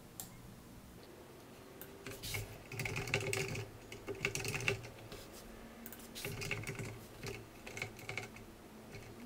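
Typing on a computer keyboard in bursts of rapid keystrokes with short pauses between, starting about two seconds in.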